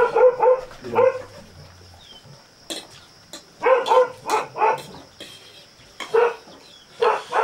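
A dog barking in short, sharp barks that come in clusters, about a dozen in all: a quick group at the start, one about a second in, a run of four around four seconds in, and a few more near the end.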